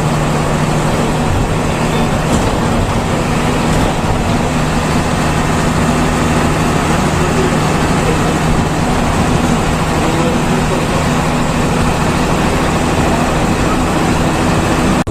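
Bus engine droning steadily with road and tyre noise, heard from inside the cabin while the bus drives.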